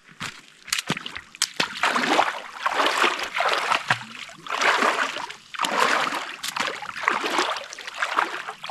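Repeated splashing of lake water, roughly once a second, as a person wades and swims in a cold lake.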